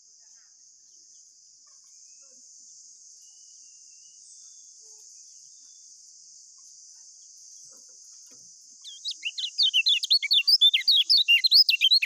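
Kecial kuning white-eye singing in a rapid, unbroken run of short chirps that rise and fall in pitch, starting about nine seconds in. Before that there is only a steady faint high-pitched hiss.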